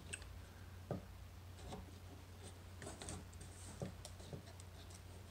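Faint handling noises: fingers moving the stiff wire leads of a radio's loop antenna on its fibreboard back plate, a few small scrapes and clicks, one a little louder about a second in. A low steady hum sits underneath.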